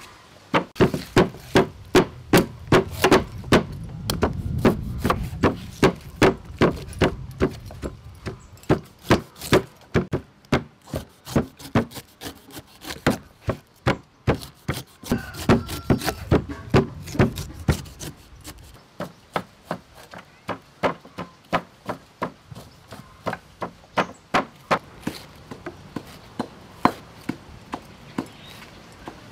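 Stone mortar and pestle pounding spices for a marinade paste: steady, sharp knocks about two to three a second, with a low rumbling at times.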